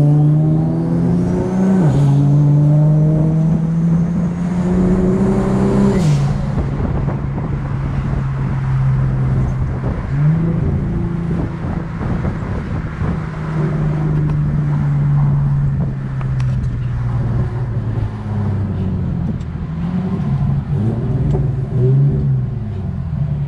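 Big-single-turbo Infiniti G37's V6 pulling hard at full throttle, its pitch climbing and then dropping at quick upshifts about two and six seconds in, with a high turbo whistle over the top. From about ten seconds in the engine eases to a steadier, lower note.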